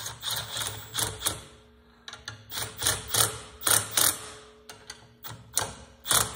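Irregular metal clicks and ratcheting from a small hand tool turning the end-cap screws of a 12-volt hose-reel drive motor, snugging them finger tight.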